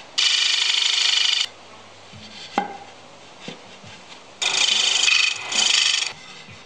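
Turning tool cutting a spinning wooden lid on a wood lathe in two rough, grating bursts, about a second long and then nearly two seconds long. Between them the lathe runs with a low hum, and there is a short squeak.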